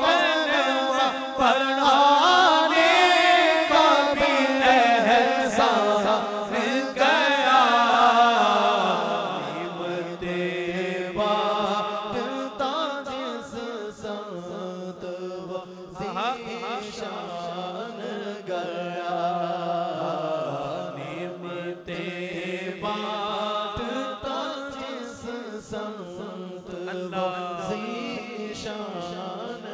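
Naat recitation: a man's voice chanting long, drawn-out, ornamented lines over a PA microphone, loudest for the first eight or nine seconds and then quieter and steadier, with a held low vocal drone underneath from the backing reciters.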